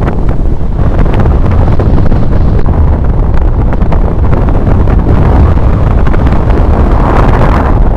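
Strong wind buffeting the microphone: a loud, continuous rumbling wind noise.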